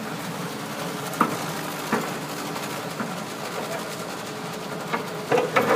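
Diesel engine running steadily at idle, with several sharp knocks and clanks over it, the loudest few near the end.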